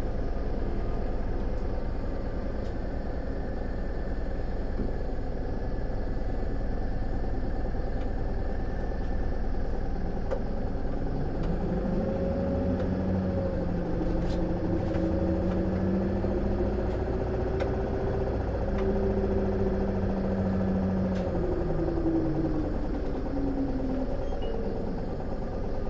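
Isuzu Erga city bus's diesel engine idling while standing, heard from inside the passenger cabin as a steady low rumble. From about the middle, a set of tones rises in pitch, holds for several seconds, then falls away near the end.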